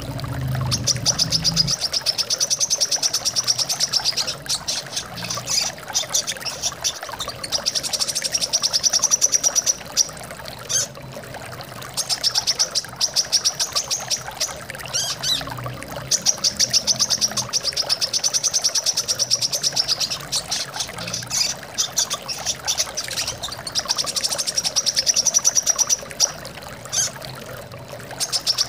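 Brown-throated sunbird (kolibri kelapa) singing fast, high chirping trills in phrases of a few seconds, again and again, over a steady sound of running water.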